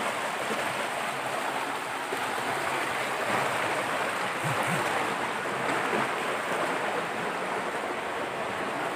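Steady rush of flowing water, an even hiss with no breaks.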